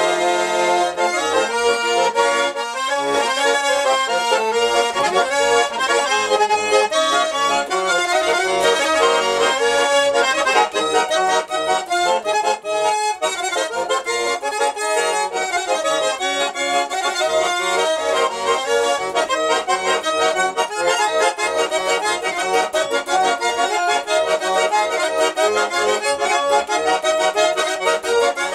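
Garmon, a Russian button accordion, playing a folk-style tune with melody and chords. The playing is continuous apart from a brief near-pause about twelve seconds in.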